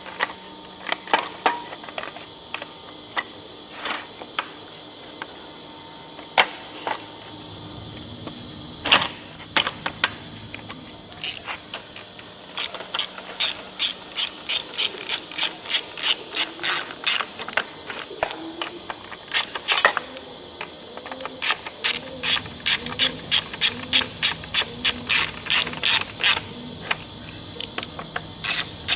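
A hand ratchet wrench clicking as bolts are run in, first in scattered single clicks, then from about eleven seconds in in quick, even runs of about three clicks a second. A steady high, insect-like drone runs underneath.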